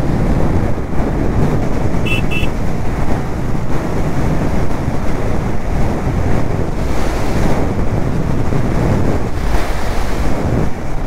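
Wind buffeting the camera microphone of a riding motorcycle, a steady heavy rush that covers the engine. Two short high beeps sound about two seconds in.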